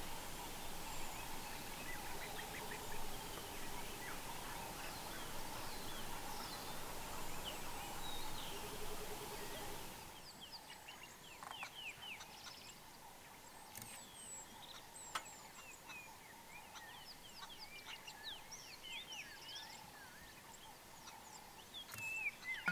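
Bush ambience with many birds calling in short chirps and whistles over a steady hum. About ten seconds in the background drops, and scattered bird calls carry on.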